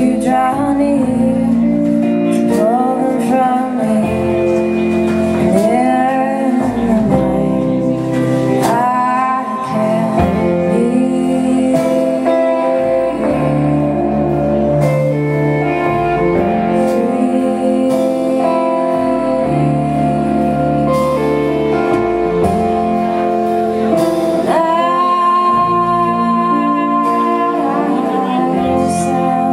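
Band playing an instrumental passage of a song: guitars and bass under a lead line that slides and bends in pitch, with a long held high note near the end.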